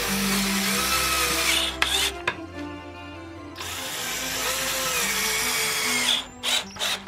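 Cordless drill driving screws into wood in two runs, its motor whine rising and falling as each screw goes in. The first run stops about two seconds in; the second starts a second later and stops near the end, followed by a few short knocks.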